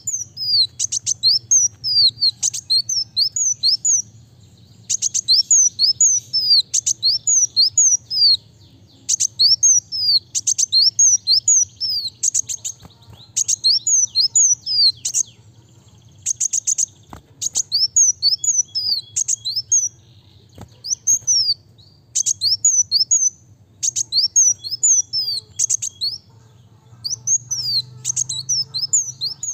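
Male ruby-cheeked sunbird (kolibri wulung) singing fast and densely: rapid runs of high, falling, sharp notes in bursts of a second or two, separated by short pauses, over a faint low hum.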